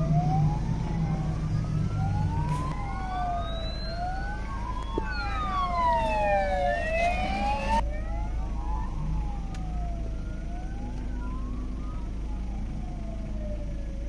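Several Guardia Civil sirens wailing, slowly rising and falling and overlapping out of step. They are loudest a little past the middle, then fainter.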